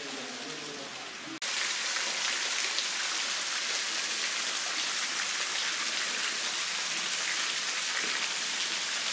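Thin waterfall splashing into a pool, a steady pattering hiss like heavy rain that starts abruptly about a second and a half in.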